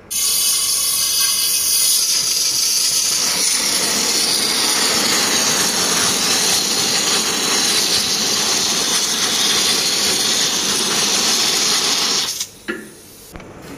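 Liquid Freon refrigerant hissing steadily out of a charging hose's brass fitting, sprayed onto an air conditioner's stuck four-way reversing valve to cool it and free it. The spray cuts off about twelve seconds in.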